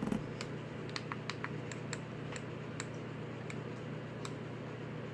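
Scattered small clicks and crackles, a few a second, as a vape mod with a mesh tank is drawn on, over a steady low hum.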